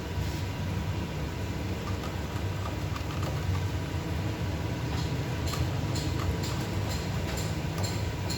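A steady low hum runs throughout. Over it, from about halfway through, come faint, irregular small clicks and taps of hand tools handling small drone gimbal parts.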